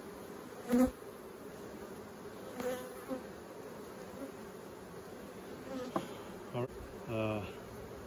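Honeybees of a strong colony humming steadily around an opened hive. A few brief louder sounds stand out over the hum, the loudest about a second in.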